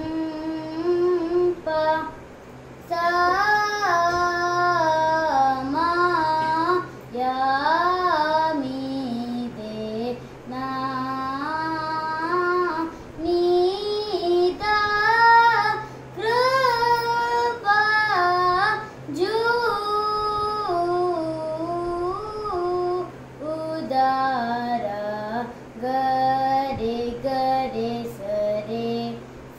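A boy singing a Carnatic thana varnam solo, his voice sliding and wavering around the notes in gamaka ornaments, in phrases broken by short pauses for breath. A steady low hum sits underneath.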